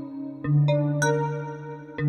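Korg opsix FM synthesizer playing a patch: a held low note fades, and then a new low note with ringing overtones strikes about half a second in. Two quick higher notes follow shortly after.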